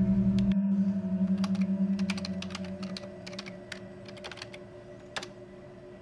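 Computer keyboard typing: a quick run of keystrokes, then a single louder click near the end. Under it a low, sustained drone of horror score music fades away over the first few seconds.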